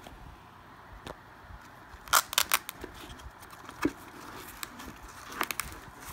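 A Ryobi cordless drill being worked into a Kobalt fabric drill holster: the drill's plastic body knocks and clicks against the holster, with a quick run of sharp clicks about two seconds in (the loudest), another knock near four seconds and a few more clicks near the end.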